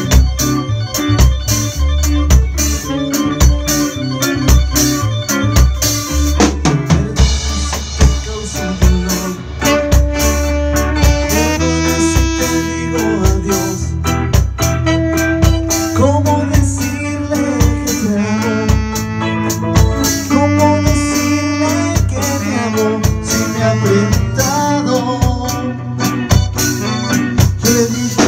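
A reggae band playing live: drum kit with rimshots, bass guitar, keyboard and electric guitar. A saxophone carries a held melody line from about ten seconds in.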